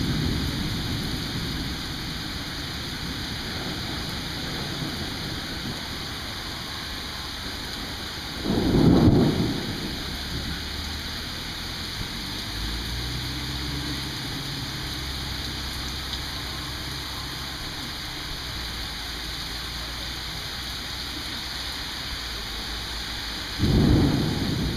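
Steady rain hissing, with two short, loud thunder booms: one about nine seconds in and one near the end. A faint low rumble runs in between.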